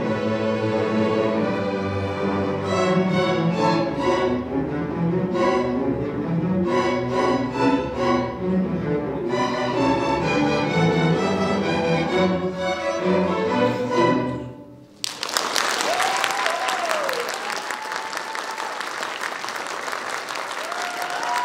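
String orchestra of violins, cellos and double basses playing the closing bars of a waltz, cut off on a final chord about 14 seconds in. After a brief gap the audience applauds, with a few rising and falling cheers over the clapping.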